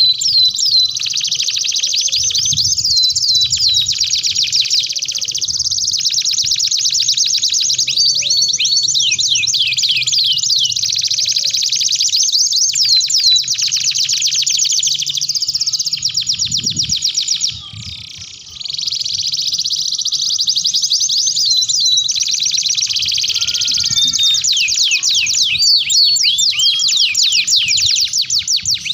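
Domestic canaries singing a long song of rapid trills and quick runs of high, falling notes, with a brief break of about a second just past halfway.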